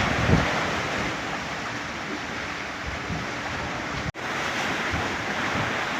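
Sea waves surging and breaking, driven by strong wind, with wind buffeting the microphone. The sound cuts out for an instant about four seconds in.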